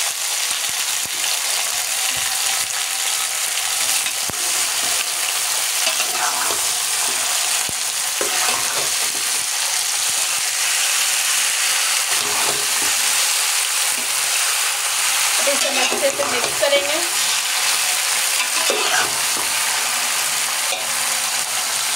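Boiled raw mango pieces sizzling steadily in hot oil in a large metal pot, with a metal spatula stirring and scraping through them.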